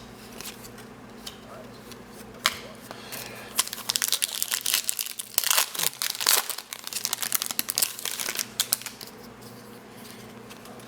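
Foil wrapper of a baseball card pack crinkling and tearing open, a dense run of crackles from about three and a half seconds in until about nine seconds in.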